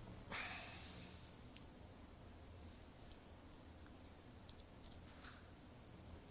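Faint, scattered clicks at a laptop as the presentation slides are advanced, after a brief soft rush of noise just after the start.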